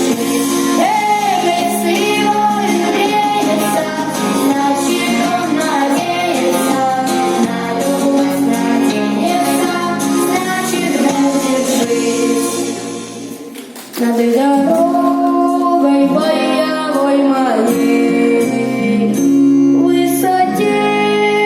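A vocal group singing a song over instrumental backing, with women's voices on the melody. Just past halfway the music briefly falls away, then comes straight back in.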